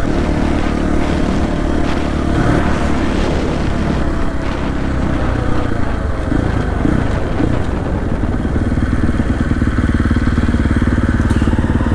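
2023 KTM 450 XCF's single-cylinder four-stroke engine running while the bike rides along at a steady pace, with tire and road noise underneath; it gets a little louder in the last few seconds.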